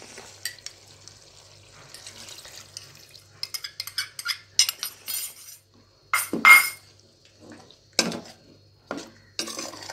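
Coconut milk poured into a stainless steel pot of frying chicken, then stirred in with a metal spatula that scrapes and clanks against the pot. The loudest clanks come about six seconds in, with more about eight and nine seconds in.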